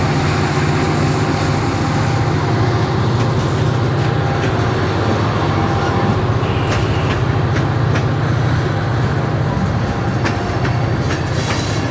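Loaded rock train's EMD diesel locomotives working hard up a steep grade: a steady, heavy engine rumble under load. From about four seconds in, wheels click over the rail joints.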